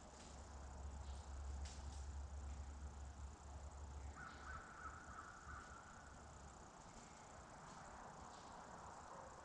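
Quiet woodland with a crow cawing in the distance about four seconds in, over a low rumble that fades after about six seconds.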